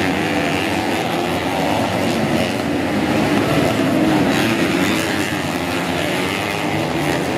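Modified underbone race motorcycles racing on a dirt grasstrack course: a loud, continuous engine drone with no let-up.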